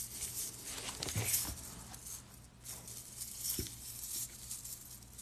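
Chainmail jelly cubes squeezed and turned in the hands, their metal rings softly jingling and rustling against each other in uneven little bursts.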